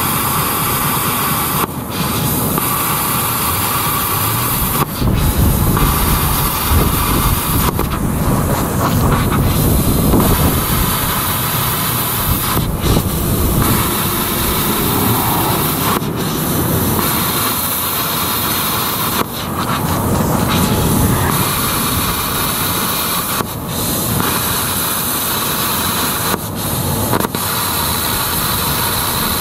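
Handheld plasma cutter cutting through steel rake tines: a loud, steady hissing rush, broken by brief pauses between cuts several times.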